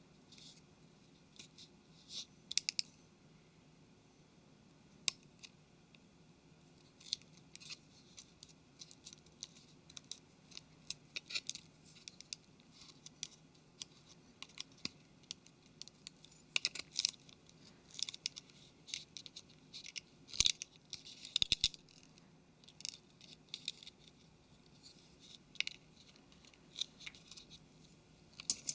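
Metal tweezers ticking and scraping against a phone's plastic frame as double-sided adhesive tape is laid and pressed down over a flex cable: scattered light clicks, with a run of louder clicks in the second half.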